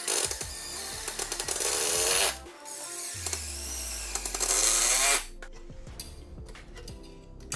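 A small electric motor, such as a drill's or a 775 DC motor's, running in two bursts of about two seconds each, followed by a few light clicks, over background music.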